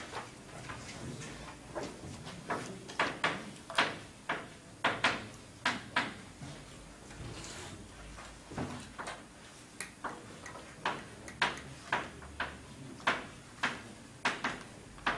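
Chalk tapping and scratching on a blackboard as code is written by hand: irregular sharp taps, several a second in quick runs, with short squeaky streaks on some strokes.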